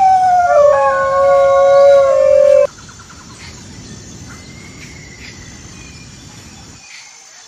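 Dingo howling: one long howl that rises at the start, then holds with small steps in pitch and breaks off abruptly under three seconds in. After it comes a faint outdoor background with a few short chirps.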